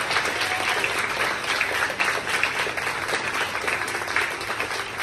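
Audience applauding: a dense, steady run of many people's handclaps that eases off slightly toward the end.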